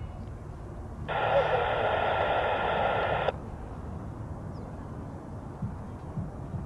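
A burst of air traffic control radio from a scanner, about two seconds long, starting about a second in and cutting off suddenly, over a steady low rumble of jet engines.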